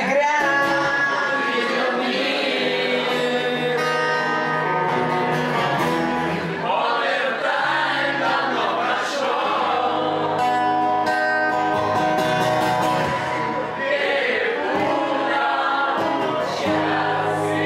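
Male vocalist singing a rock ballad live to his own acoustic guitar, with long held sung notes over the guitar.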